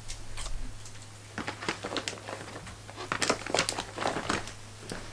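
Glittery slime squished and pressed by hand in a glass bowl, giving a run of small crackles and clicks.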